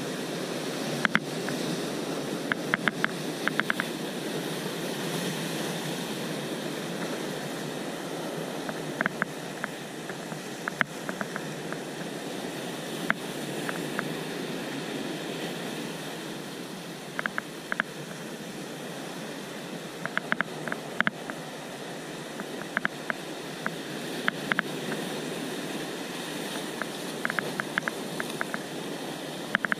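Steady rushing noise of sea surf breaking against rocks below, with short clusters of light, sharp clicks every few seconds.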